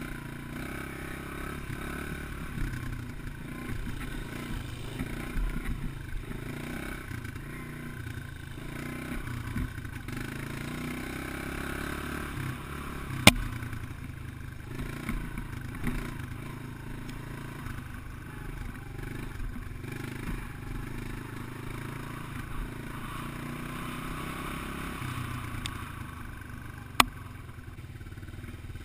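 Dirt bike engine running along a rough trail, heard from the rider's own bike, its level rising and falling with the throttle. Two sharp knocks, one about halfway through and one near the end.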